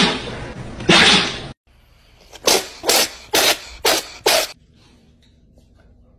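Two loud, short, noisy bursts during the puppy clip, then a black cat sneezing five times in quick succession, about two a second.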